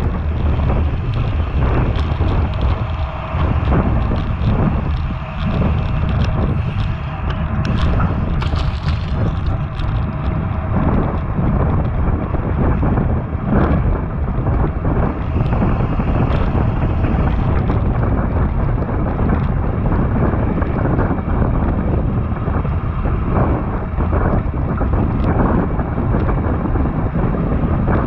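Steady wind rush buffeting an action camera's microphone on a bicycle ridden at racing speed, a dense low rumble.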